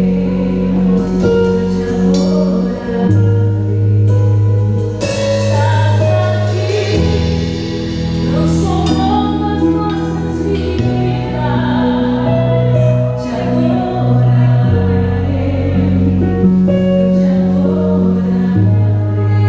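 Live worship band playing a slow song: singing over sustained bass and keyboard chords that change every couple of seconds, with light cymbal and drum strokes from the kit.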